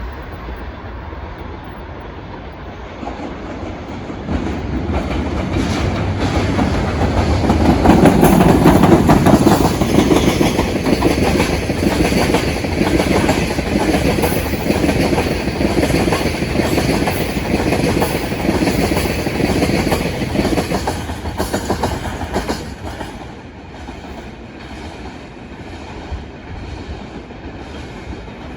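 Freight train passing, its wagons' wheels clattering over the rail joints. It builds from about four seconds in, is loudest a few seconds later, and falls away after about twenty-two seconds.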